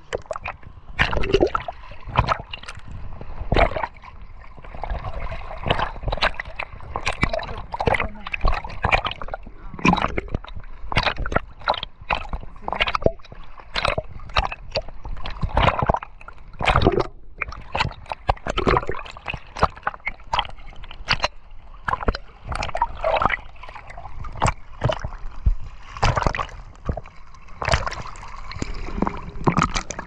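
Sea water splashing and sloshing against a camera held at the waterline by a swimmer, in quick, irregular splashes.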